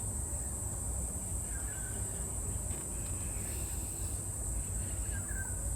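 Steady high-pitched trilling of insects over a low outdoor rumble, with two faint short bird chirps, one about two seconds in and one near the end.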